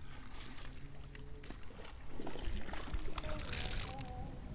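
Spinning reel being cranked to retrieve a casting lure, with clicking and handling noise against a steady low rumble on the microphone, and a brief rush of noise about three seconds in.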